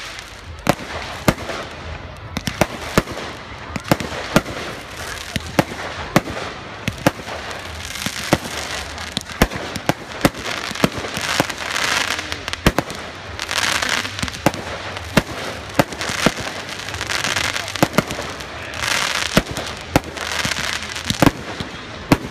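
Aerial fireworks display: many sharp bangs of bursting shells in quick, irregular succession.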